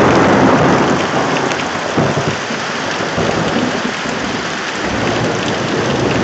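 Heavy rain pouring steadily, with thunder rumbling in a thunderstorm, loudest in a sudden surge right at the start and swelling again about two seconds in.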